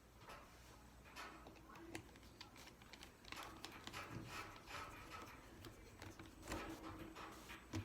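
Faint, irregular clicks, taps and short scrapes of hands and a small tool working on the plastic and metal parts inside a Chromebook.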